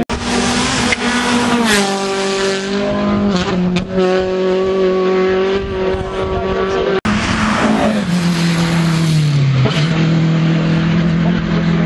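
Rally car engine running hard at high revs, its pitch stepping down at each gear change. About eight seconds in the revs fall away and then pick up again, and the sound cuts out for an instant twice.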